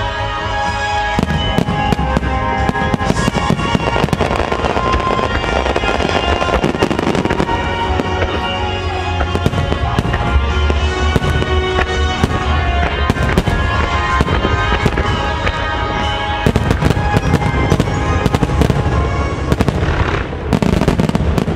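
Aerial fireworks bursting in quick succession over music, with a denser cluster of bangs shortly before the end.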